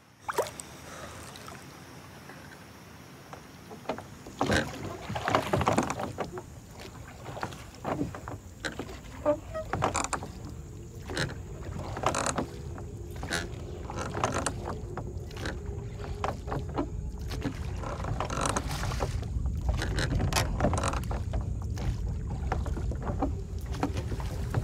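A rowboat being rowed on a river: oars dipping, splashing and knocking in irregular strokes over a steady outdoor hiss.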